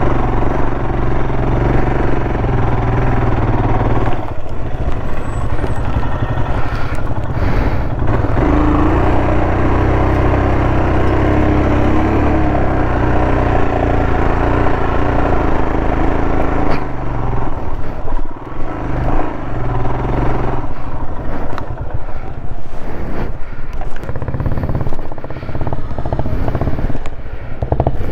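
Motorcycle engine running as the bike is ridden slowly over soft sand; the engine note picks up about 8 seconds in and turns uneven after about 17 seconds as the bike slows to a stop.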